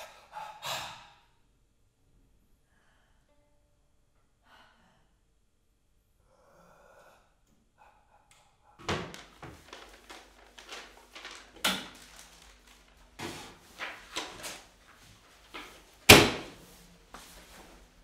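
Kitchen clatter: from about nine seconds in, a run of knocks and bangs of pots and cooker parts being handled, with one loud bang about two seconds before the end. Before it, a short rush of noise at the very start and several seconds of near silence.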